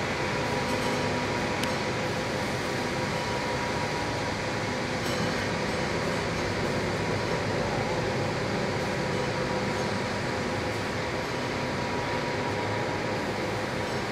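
Steady factory-hall machinery noise: an even hiss with a faint steady hum underneath.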